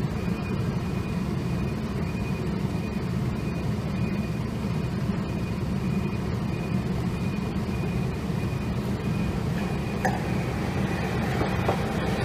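Steady low rumble of street traffic, with a Hankai tramcar drawing near and passing close in the last couple of seconds; a faint high tone pulses on and off throughout.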